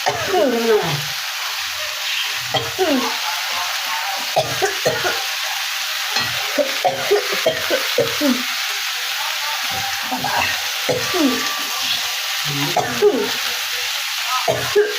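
Food frying in hot oil in a pan: a steady sizzle, with repeated short scrapes as it is stirred.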